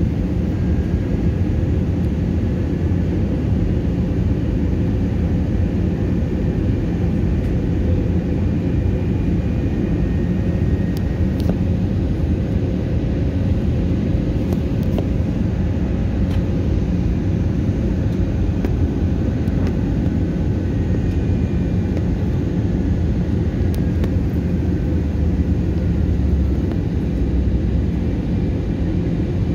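Airliner cabin noise during descent: a steady low roar of engines and rushing air, with a steady hum in it.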